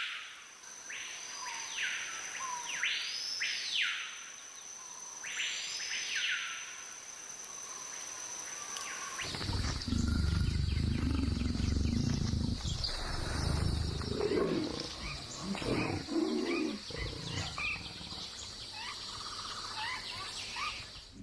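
Rainforest animal sounds: a whistled call that rises and falls, repeated about every two seconds, over a steady high whine. About nine seconds in the sound changes abruptly to a loud, deep animal call among other scattered calls.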